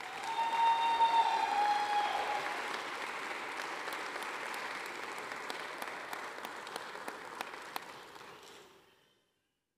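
Audience applause, strongest in the first few seconds, then thinning and cutting off near the end. A single voice holds a long cheering call over it in the first two seconds.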